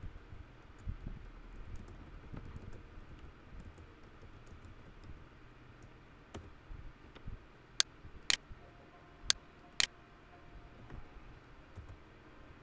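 Typing on a computer keyboard: light, quick key clicks. About eight seconds in come four louder, sharp clicks within two seconds.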